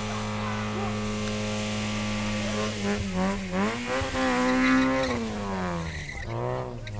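A steady low hum, then from about three seconds in a car engine revs hard during a burnout, its pitch climbing and dropping several times.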